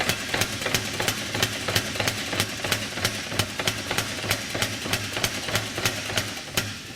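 Hammer blows on a steel damascus billet, struck at an even pace of about three a second over a steady mechanical hum.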